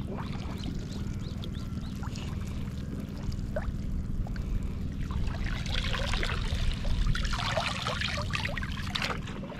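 Water splashing and trickling, with scattered small splashes that grow busier and louder about halfway through, over a steady low rumble.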